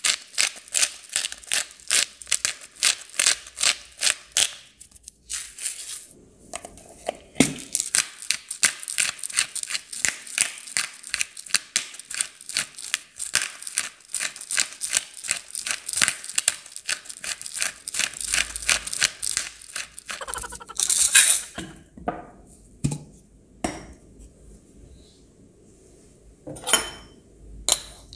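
Pepper mill being twisted to grind black pepper: a quick, even run of crunching clicks, about four a second, with a short pause about five seconds in. After about twenty seconds the grinding stops, followed by one brief louder scrape and a few separate knocks.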